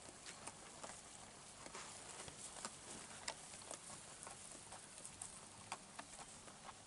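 Faint, irregular crackling and rustling of dry straw bedding as Cameroon dwarf sheep move and nose through it to feed, with scattered soft clicks, the sharpest a little past the middle.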